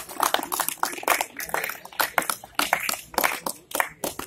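A group of people clapping: many uneven hand claps close together, stopping near the end.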